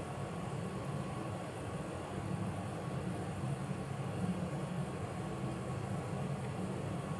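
Steady low background hum with no distinct events, and a faint thin steady tone higher up.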